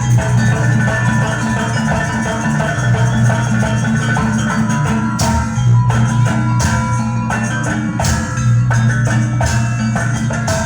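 Live jaranan gamelan music: metal mallet instruments playing a busy interlocking pattern over drums and a steady deep tone.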